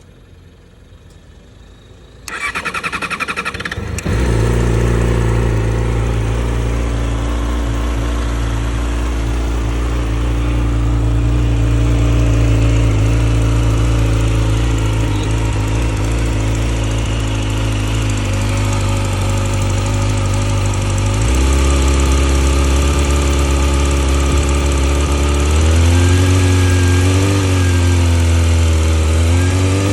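2020 Yamaha YZF-R6's inline-four engine cranked by the electric starter for about two seconds, catching and settling into a steady idle. The idle drops to a lower speed about two-thirds of the way through, and the revs rise and fall a few times near the end. It is being recorded for a ticking noise.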